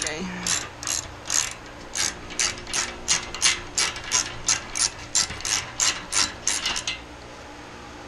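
Hand socket ratchet clicking in quick back-and-forth strokes, about three a second, as it turns a bolt on a small tiller engine; the clicking stops about seven seconds in.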